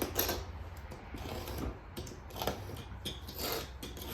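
Hand tool scraping and picking at old caulking on a wooden window sash, in short, irregular scratchy strokes about once a second.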